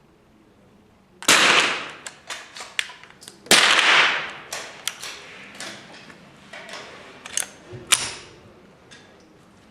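Gunshots: two loud, echoing shots about two seconds apart, followed by several fainter sharp cracks and clicks.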